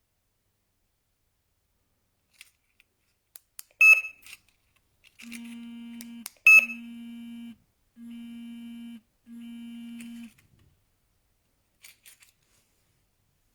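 Wi-Fi alarm system unit beeping: a few light clicks, a sharp short beep, then four steady buzzing tones of about a second each with short gaps, with another sharp beep as the second tone begins.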